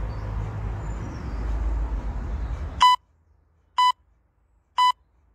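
Low rumbling noise that cuts off abruptly a little under three seconds in, followed by three short, identical electronic beeps about a second apart: a workout interval timer counting down the end of the exercise interval.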